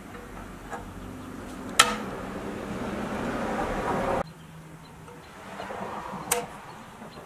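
Painted pressed-steel toy truck parts being handled and fitted together: a sharp metallic click about two seconds in, then rubbing and handling noise that cuts off suddenly. A second rustle of handling ends in another click near the end.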